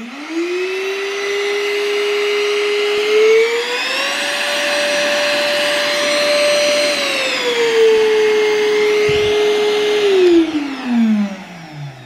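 TOPPIN cordless handheld vacuum's motor starting up and running with a steady whine. About three and a half seconds in it steps up in pitch to maximum power, about four seconds later it steps back down to low power, and near the end it is switched off and winds down with a falling whine.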